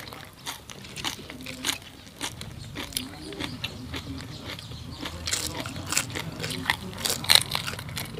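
Two people chewing and biting crisp food, deep-fried pork and raw cabbage leaves, with many short crunches and crackles.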